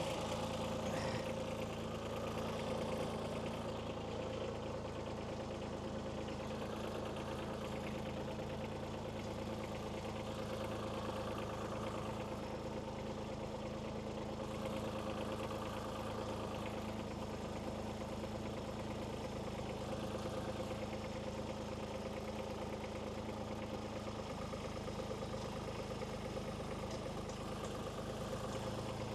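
Kubota B2301 compact tractor's three-cylinder diesel engine running steadily at an even speed, pulling on a rope tied to a hung-up, storm-damaged tree.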